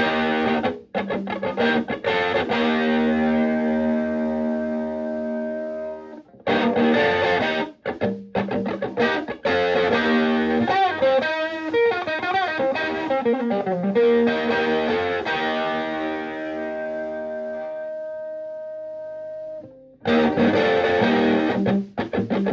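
Electric guitar, a Stratocaster, played through a Höfner-style germanium preamp into a Fender Twin Reverb-style amp: chords and notes struck and left to ring with short breaks. A long chord fades out, and fresh playing starts again near the end.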